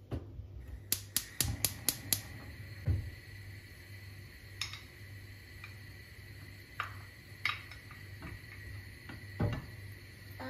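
Kitchen dishes and utensils clinking as they are handled: a quick run of about six light clicks in the first couple of seconds, then scattered single knocks, over a faint steady hum.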